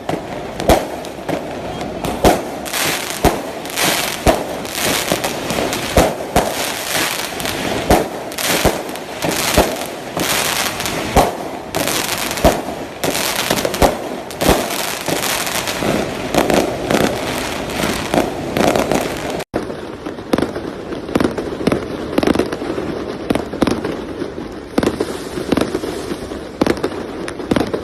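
Fireworks and firecrackers going off in a dense, irregular string of sharp bangs and crackles. The sound cuts out for an instant about two-thirds of the way through, and the bangs carry on after it.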